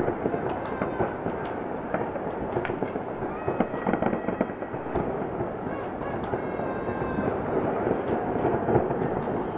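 Many distant fireworks going off at once: a dense, continuous run of bangs and crackles, with a few sharper pops standing out.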